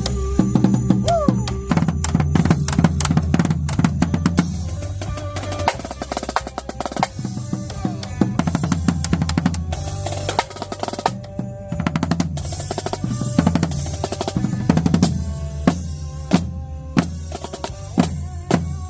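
Percussion-driven music: rapid drum strokes and snare rolls over a steady bass line, thinning to separate sharp hits near the end.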